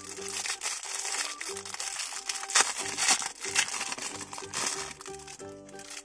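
Clear plastic bag crackling and crinkling as fingers open it, with one louder crackle about two and a half seconds in, over light background music.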